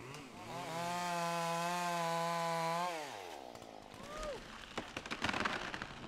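Chainsaw engine revving up, held at high speed for about two seconds, then dropping off. A few clicks and crackles follow near the end.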